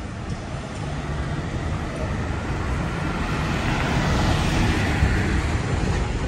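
Iveco Daily refrigerated box truck driving past close by on a cobblestone street, its engine and tyres rumbling. It grows louder to its peak a little past halfway, then eases off as it goes by.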